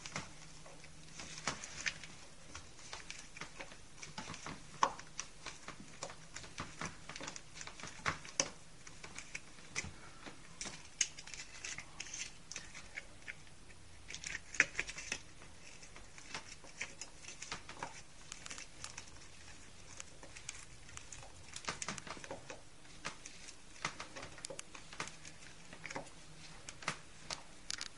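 Irregular small clicks, taps and scratches of a plastic telephone wall socket and its screws being handled and worked with a small screwdriver.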